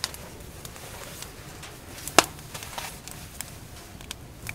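Scattered, irregular sharp clicks and crackles over a steady hiss, with one loud click about two seconds in.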